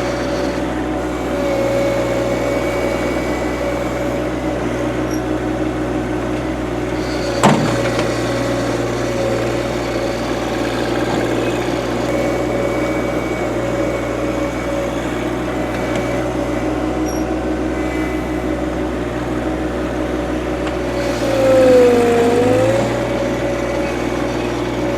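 John Deere 2025R compact tractor's three-cylinder diesel engine running steadily while working the backhoe, with one sharp knock about seven seconds in. Near the end the engine pitch dips briefly and comes back up as it takes a load.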